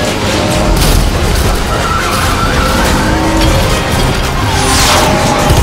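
Dense mix of action-film soundtracks playing over one another: car engines and skidding tyres over music, with a long falling screech near the end.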